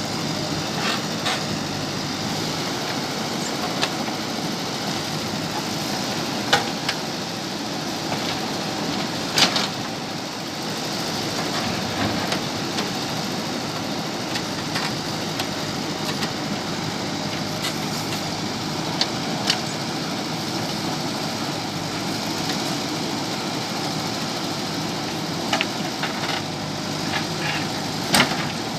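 JCB backhoe loader's diesel engine running steadily while the machine digs, with a few sharp knocks scattered through it as the bucket strikes stone.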